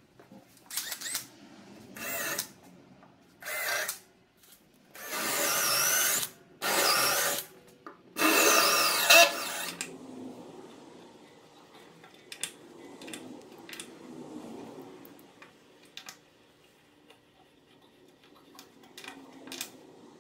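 Electric drill run in six short bursts, boring holes into a walnut slab, its motor pitch wavering within some runs. After that come faint clicks and scraping as brass threaded inserts are turned into the holes by hand.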